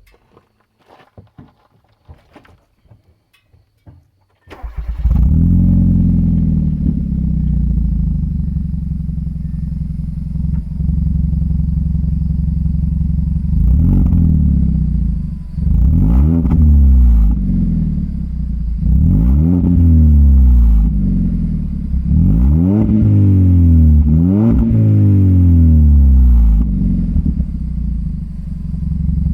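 Naturally aspirated first-generation Hyundai Veloster's 1.6-litre four-cylinder, breathing through a Borla axle-back exhaust with the stock resonator kept, starting warm about four seconds in. It flares up and settles to a steady idle, then is revved several times, dropping back to idle between revs and at the end.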